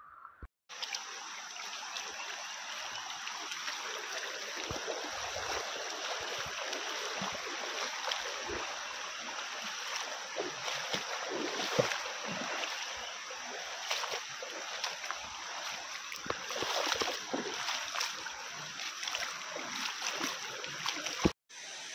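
Shallow, rocky river water rushing steadily, with irregular splashes of feet wading through it.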